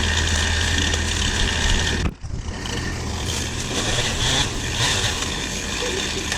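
Engine of heavy equipment or a vehicle running steadily. About two seconds in the sound cuts off abruptly and another steady, noisier engine background follows.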